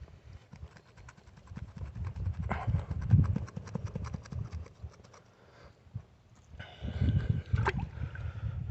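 Digging out a glass bottle wedged in creek gravel: stones and gravel clicking and scraping, with low knocks, rumble and water sloshing from the handling. It goes quiet briefly past the middle, then picks up again.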